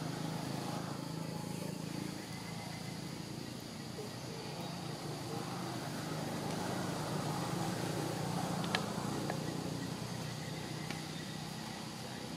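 Steady low hum of a distant motor vehicle, swelling slightly through the middle and easing off near the end, with a faint high background buzz and a single sharp click about nine seconds in.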